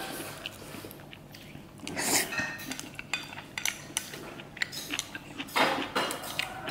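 Cutlery clinking and scraping against dishes: a string of small clicks, with louder scraping about two seconds in and again near the end.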